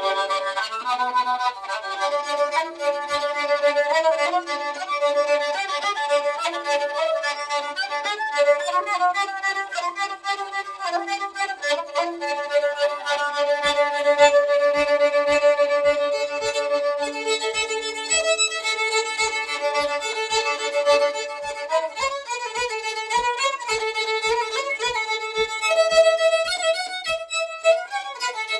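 Fiddle played with the bow, a tune moving between notes. From about halfway a soft regular knock, about two a second, keeps time under it.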